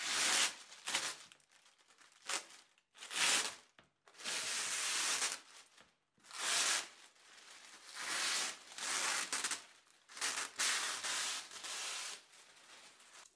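Thin plastic perforated release film being peeled by hand off tacky carbon fibre prepreg and crumpled. It makes a series of irregular rustling, crinkling bursts.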